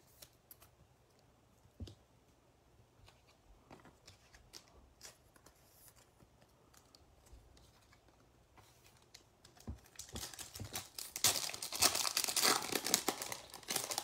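The wrapper of a 2021-22 Donruss basketball card pack being torn open and crinkled by hand, loud from about ten seconds in. Before that there are only faint, light clicks of cards being handled.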